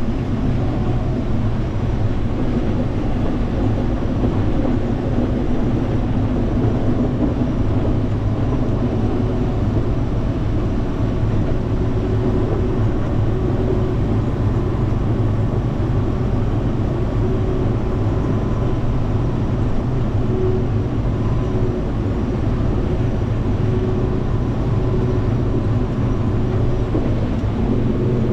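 Combine harvester running steadily at work in a maize field, a continuous loud machine drone with a steady hum that does not change.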